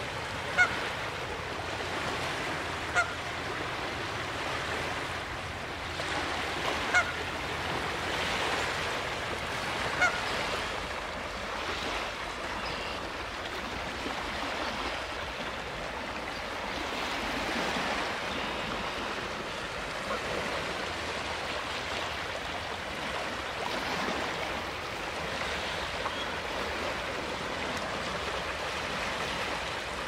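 Canada goose giving short honks, about five in the first ten seconds, over small waves washing steadily onto a pebble beach.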